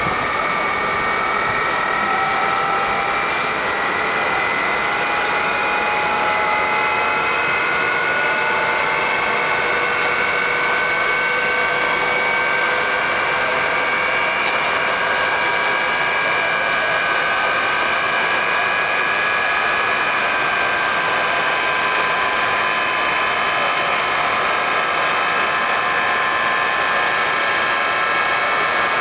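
Jet engine of a jet-powered semi truck running with the truck standing still: a steady, loud turbine whine over a rushing noise, its several tones creeping slowly upward in pitch.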